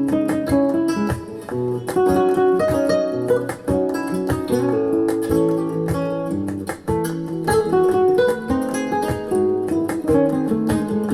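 Acoustic guitar music with fast plucked and strummed notes, played through a Grundig Super HiFi Box 2500 loudspeaker for a listening test.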